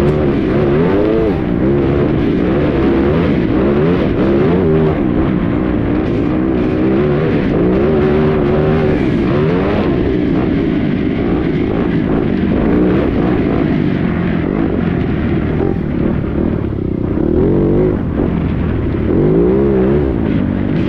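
Single-cylinder four-stroke engine of a TM EN300Fi 4T enduro dirt bike, heard from the rider's helmet camera while riding a dirt trail. The engine revs up and falls back again and again as the throttle opens and closes and the gears change.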